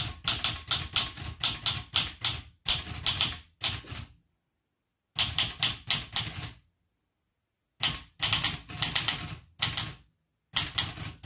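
Never-used 1970 Olivetti Lettera 32 manual portable typewriter being typed on: runs of light, snappy key strikes, several a second, broken by pauses of about a second between bursts.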